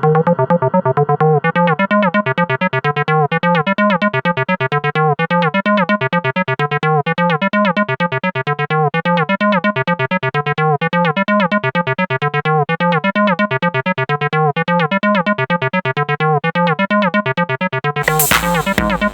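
Electronic synthesizer music: a fast, evenly repeating pattern of synth notes, each bending upward in pitch, over a pulsing bass. Near the end a loud, noisy drum layer comes in.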